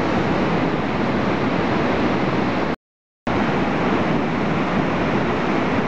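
Steady roar of big whitewater at Lava Falls rapid on the Colorado River, running high at about 16,600 cfs. The sound drops out completely for about half a second midway.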